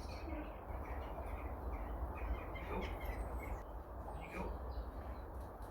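Birds chirping and calling outdoors: many short, repeated chirps, with a couple of harsher calls about a third and two thirds of the way through, over a steady low rumble.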